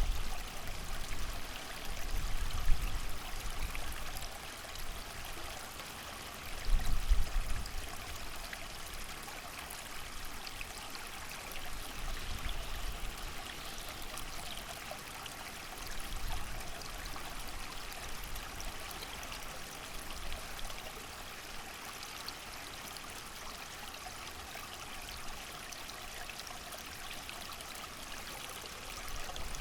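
Creek running steadily with the hiss of rain, while low gusts of wind swell in now and then, strongest near the start and about seven seconds in.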